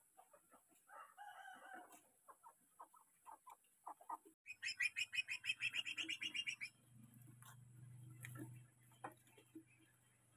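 Cucak ijo (green leafbird) calling: scattered short chirps, then about halfway through a loud, fast run of repeated notes, about seven a second, lasting about two seconds, followed by a few more short chirps.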